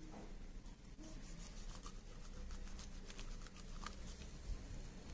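Faint scraping and soft ticks of a plastic spoon stirring a thick, grainy paste of lemon and ground rice in a glass bowl.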